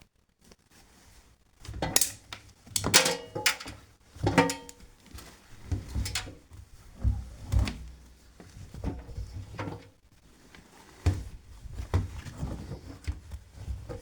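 Beko washing machine knocking and thudding irregularly, about one dull thud every half second to a second, the loudest ones two to four seconds in.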